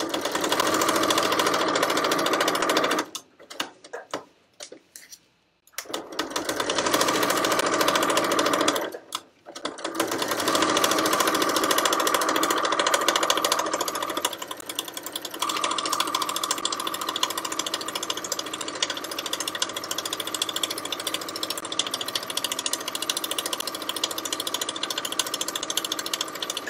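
Janome electric sewing machine stitching through fabric, running at a steady speed in three stretches: about three seconds, a short pause, about three seconds more, then a long unbroken run from about ten seconds in.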